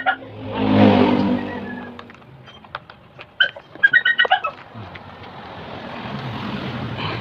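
Motor vehicles passing. One loud pass swells and fades about a second in, and another builds toward the end. Between them come two quick bursts of bird chirps around the middle, with small clicks from wire connectors being handled.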